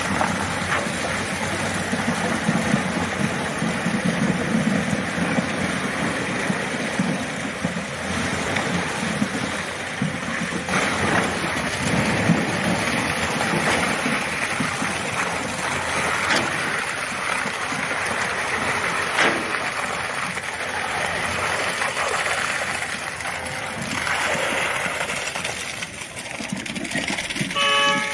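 Truck-mounted concrete boom pump running steadily while concrete is pumped out through the end hose onto the slab, with a few faint knocks.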